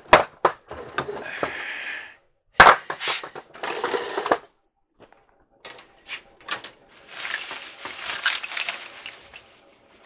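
Household clutter being shifted by hand: a run of knocks and clatter with one loud bump about two and a half seconds in, then rustling and shuffling in the second half.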